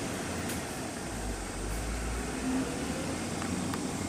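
Steady low rumble of a vehicle engine under a hiss of background noise, the rumble growing deeper about a second in.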